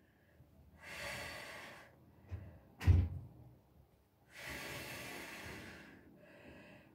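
Two long, heavy exhales from a person doing glute bridges, one about a second in and a longer one from about four seconds, with a single dull thump about three seconds in.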